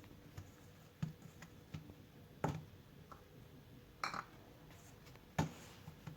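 Faint handling sounds of dough being worked by hand in a mixing bowl: a few short knocks and light clinks against the bowl, four of them louder, with smaller ticks between.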